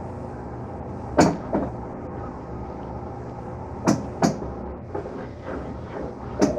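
Mueller washing machine running with a steady motor hum, broken by five sharp clunks from the machine, the loudest about a second in.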